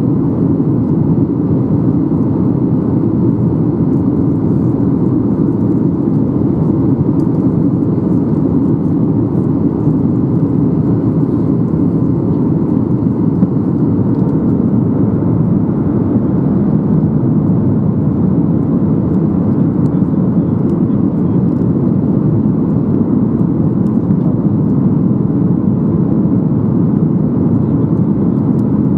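Steady cabin noise inside a Boeing 737-800 in flight on approach: the airflow and engine drone heard from a passenger seat, even throughout with no distinct events.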